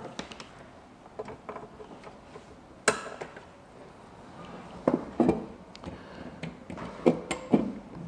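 Handling noise from connecting network gear: an Ethernet cable's RJ45 plug clicking into a port and a small PoE switch being picked up and moved on a desk. A few scattered clicks and knocks, the sharpest about three seconds in.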